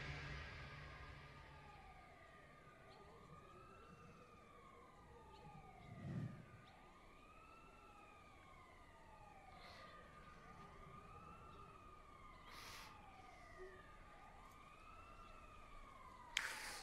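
Distant emergency-vehicle sirens, faint, several overlapping wails rising and falling in pitch every couple of seconds over a steady tone. A sharp, louder sound comes near the end.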